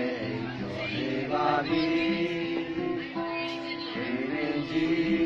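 A man singing a slow Burmese pop song in long held notes, accompanied by an acoustic guitar.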